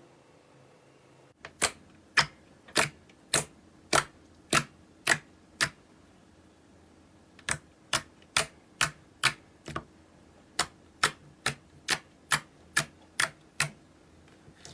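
Slime being pressed and squeezed, making sharp popping clicks in a steady rhythm, about two a second. The clicks pause for nearly two seconds midway, then resume a little faster.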